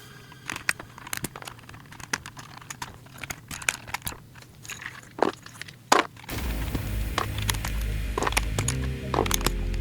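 Irregular small plastic clicks and snaps from mechanical keyboard parts being handled and worked on. Background music with a steady beat comes in about six seconds in, with more clicks over it.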